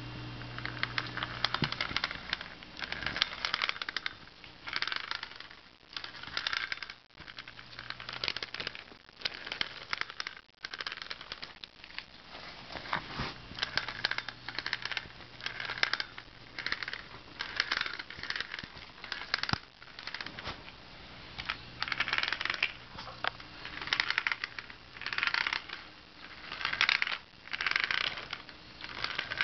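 Traxxas Nitro Rustler RC truck clicking as it rolls, in repeated bursts of rapid clicks every second or two. The cause of the click is not known.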